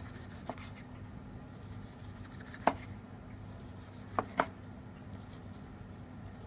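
Knife slicing through a cooked turkey breast on a plastic cutting board, the blade knocking the board in four short sharp clicks, the loudest about two and a half seconds in. A steady low hum runs underneath.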